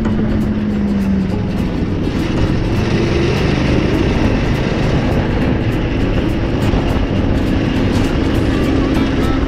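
Cyclekart's small engine running as the kart drives along; its pitch drops in the first second, then holds fairly steady.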